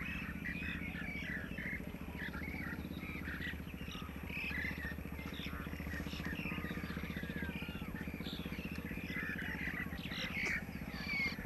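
Many small birds chirping and trilling in quick, overlapping calls, over a steady low hum.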